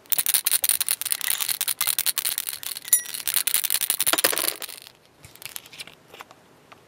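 A bottle of Mr. Weathering Color Multi Black shaken hard to mix the paint, a fast, dense rattling that stops about five seconds in. A few faint clicks follow.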